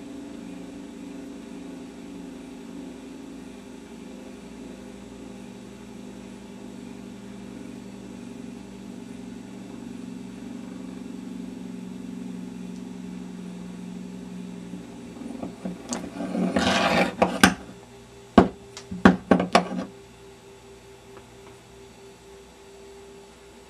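A CNC-machined metal gyroscope spinning on its pivot, its rotor giving a steady low hum that sinks slowly in pitch as it slows. About sixteen seconds in it breaks into a loud metallic rattle as it winds down, followed by several sharp metal clicks as it is handled.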